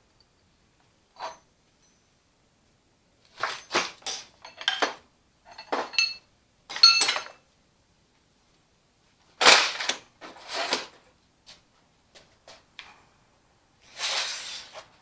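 Metal tools and car parts clanking and knocking, about a dozen sharp strikes in uneven groups, some with a metallic ring. Near the end there is a second of rattling scrape.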